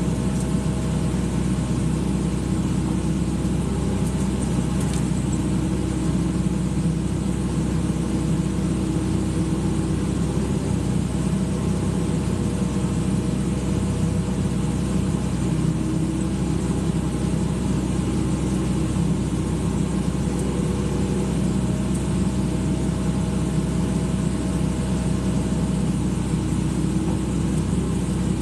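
Excavator's diesel engine running steadily at a constant low rumble, with no change in pace.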